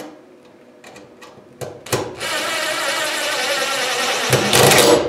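Cordless drill driving a screw into a ceiling joist to fasten an electrical box. After a few light clicks the motor runs steadily for about two seconds, then grows louder for the last half second.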